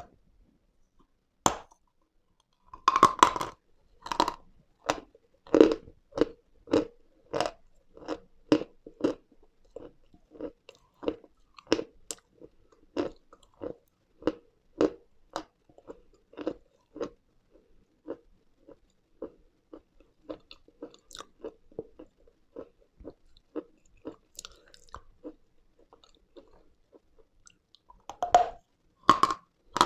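Close-miked mouth biting into a dry lump of eating chalk and chewing it. A sharp snap comes first, then a crunching bite about three seconds in, followed by crunchy chews about two a second that grow fainter, and another crunching bite near the end.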